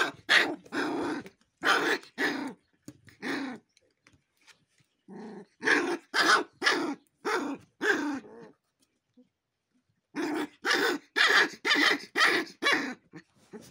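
Himalayan sheepdog (Gaddi) puppies growling and yapping aggressively while being handled. The calls are short and sharp and come in three bouts separated by short pauses.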